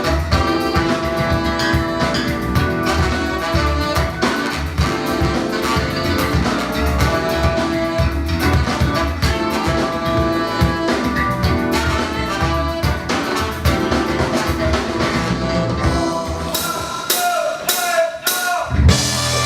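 Live band playing through a PA: drum kit and bass driving a steady groove. A few seconds from the end the bass drops out, leaving a handful of sharp drum hits, then the low end comes back in at the very end.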